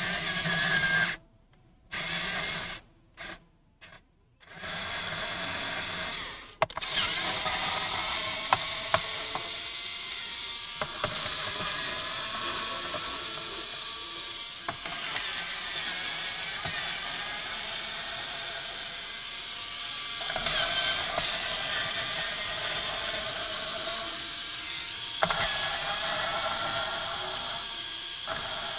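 Small cordless electric screwdriver whirring as it backs out the Phillips screws of a laptop's bottom cover. It runs in short spurts with silent gaps for the first four seconds or so, then runs almost without a break, with small clicks.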